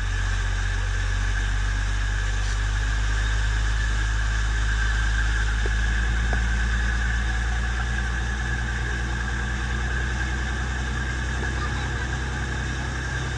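Turbo-diesel engine of a passenger ferry boat running with a steady low drone.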